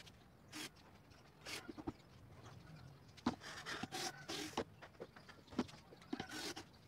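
Cordless drill driving screws into a plywood box in several short bursts, the longest cluster from about three to four and a half seconds in.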